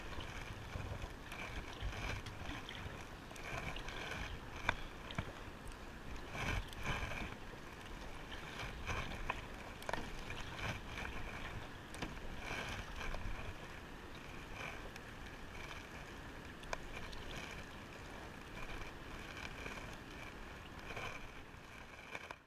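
A kayak paddle dipping into the water, over and over: the very subtle, tiny patters and small splashes of the paddle strokes.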